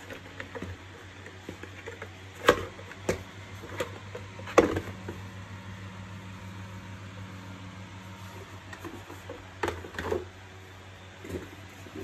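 Hard plastic parts of a Kärcher WD 3 wet-and-dry vacuum knocking and clicking as its motor cover is handled and fitted onto the motor base. There are a few sharp knocks, the loudest about two and a half and four and a half seconds in and another cluster near the end, over a steady low hum.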